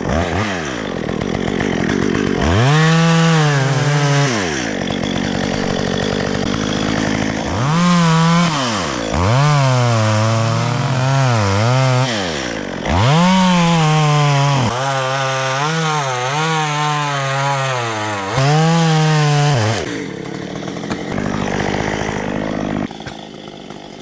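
Two-stroke chainsaw revved up in repeated bursts of a few seconds, its pitch wavering and dipping under load as it cuts into the eucalyptus wood, then dropping back to idle between cuts. It idles through the last few seconds.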